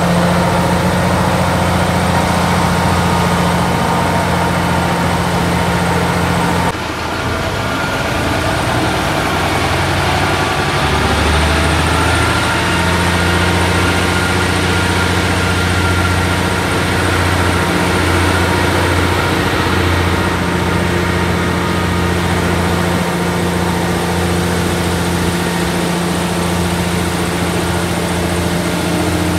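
KiHa 40 diesel railcar's engine running, heard from an open window of the moving train: a steady, wild engine note. There is an abrupt break about seven seconds in, and the engine's low note grows stronger about twelve seconds in.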